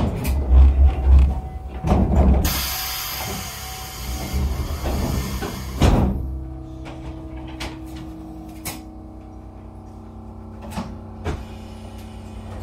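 An Echizen Railway railcar's air-operated doors closing: a few heavy knocks, then a hiss of air for about three seconds ending in a thump. After that the railcar hums steadily with a few light clicks.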